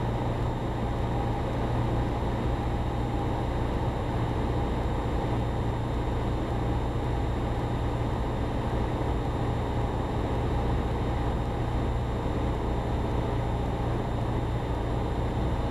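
Cessna 172's piston engine and propeller droning steadily in the cabin during an instrument approach, with no change in power.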